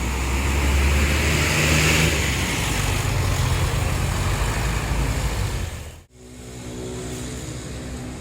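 Tour bus diesel engine running close by as the bus pulls out, a loud low rumble. About six seconds in it drops out abruptly, and a quieter steady engine hum follows.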